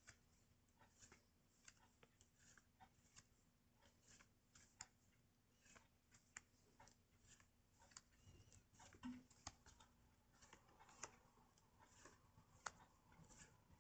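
Faint, irregular clicks and rustles of small paper pocket-timetable cards being slid off a stack one by one and laid down on a pile.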